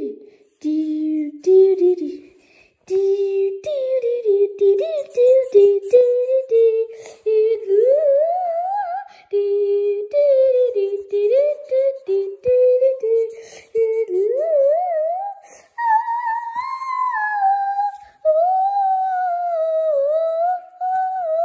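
A high voice humming a wandering wordless tune in short phrases, with pitch slides up and down. It moves noticeably higher about three-quarters of the way through.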